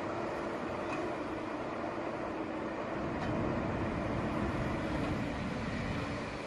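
Heavy road-paving machinery running, a steady engine rumble that swells about three seconds in and eases off near the end.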